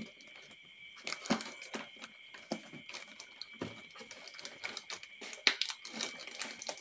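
A water-filled plastic bag being pressed and smoothed flat by hand inside a foam incubator box: irregular plastic crinkling with soft ticks and taps. A faint steady high hum runs underneath.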